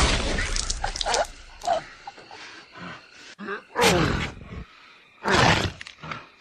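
Slam death metal recording: the full band cuts off at the start, leaving a break of separate harsh, rough bursts, some falling in pitch like growls. The loudest two come about four and five and a half seconds in.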